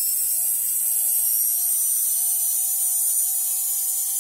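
N20 geared DC motor of a homemade cordless screwdriver running as it turns a screw in a plastic case: a steady high whine whose pitch creeps slowly upward.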